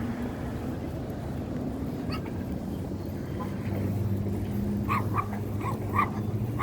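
A dog yapping: a quick run of about five short, high barks in the last two seconds, over a steady low hum.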